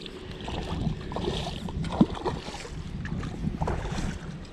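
River water sloshing and splashing, with a brief sharp sound about two seconds in.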